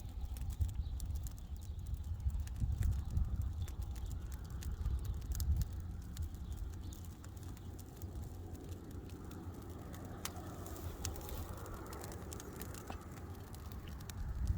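Wind buffeting the microphone with a low rumble, over scattered sharp crackles from a burning brush pile.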